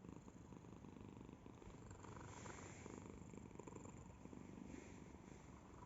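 Domestic cat purring steadily and softly, a continuous low rapid rumble that runs on without a break.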